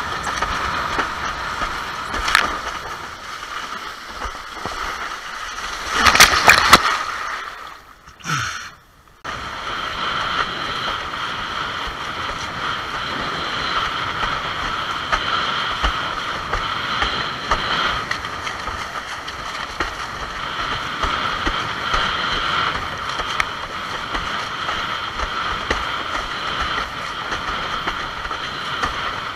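Windsurf board planing through chop: a steady rush of wind and water around the board and rig. About six seconds in a loud splash of spray hits, then the sound drops almost away for a couple of seconds before the rush returns.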